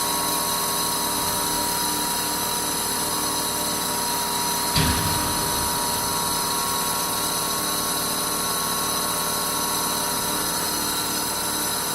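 Gasparini PSG 250/3000 CNC press brake's hydraulic power unit running: a steady machine hum with several fixed whining tones, and a single knock about five seconds in.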